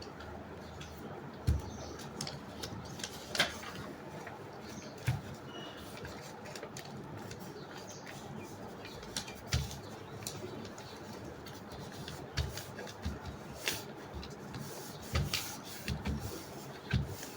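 A sheet of paper being handled and folded, with scattered short crinkles and taps from the creases over a steady hiss.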